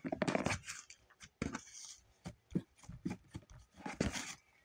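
Slime being squeezed and worked in the hands, giving irregular small squelches, clicks and pops.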